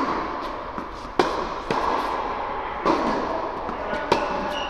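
Tennis rally on an indoor hard court: a ball struck by rackets and bouncing, about five sharp pops, each echoing in the large hall.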